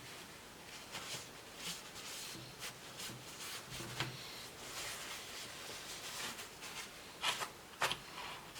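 Faint handling of laptop cooling parts: soft rubbing with scattered light clicks and taps, the two sharpest near the end.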